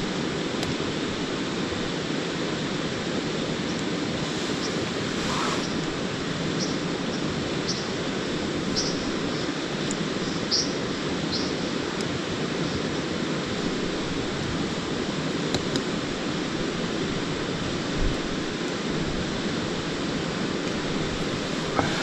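Steady rushing of a river flowing over stones, with a few faint high clicks scattered through the middle.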